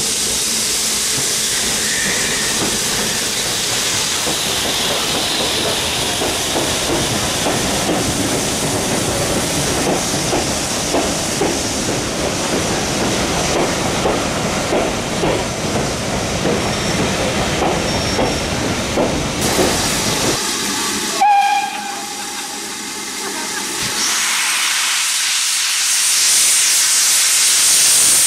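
A steam-hauled passenger train rumbling past along the platform, wheels knocking over the rails. Then a steam locomotive's whistle sounds for about two seconds, followed by a loud, steady hiss of escaping steam as the engine stands wreathed in it.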